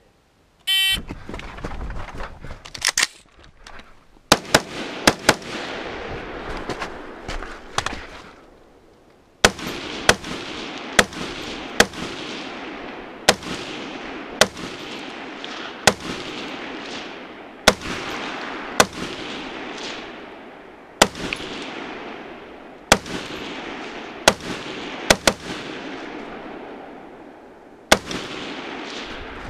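A shot-timer start beep, then an AR-15 rifle in .223/5.56×45 firing about two dozen single shots at a steady pace of roughly one a second. Each shot is followed by a long echo. The shooting pauses for about a second and a half a little over a quarter of the way in.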